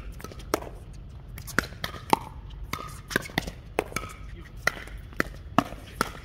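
Pickleball paddles striking a hard plastic ball in a fast doubles rally: a rapid, uneven string of sharp pops, roughly two a second.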